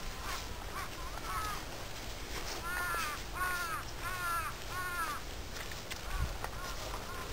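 A crow cawing four times in a row, evenly spaced, about three seconds in, with fainter bird calls around it.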